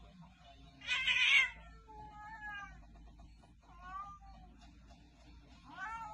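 A serval and a domestic cat in a standoff: a loud, harsh hiss about a second in, then three short meowing calls around two, four and six seconds.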